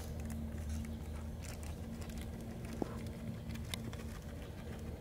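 Outdoor background: a steady low rumble with a faint constant hum, and light scattered rustles and ticks, a small sharp click a little under three seconds in.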